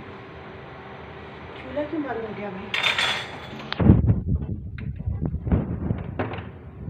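Kitchen handling at a flat iron frying pan with a sandwich cooking on it, over a steady low background. There is a brief rustling hiss about three seconds in, then a run of dull knocks and clatter against the pan.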